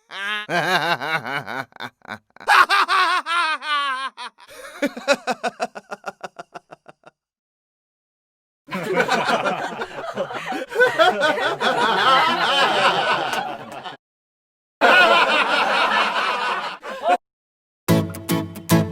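A run of laughter sound effects in separate clips with short silences between. The first clip is a laugh that breaks into a quick series of fading 'ha-ha' pulses, and the later clips are denser, layered laughter.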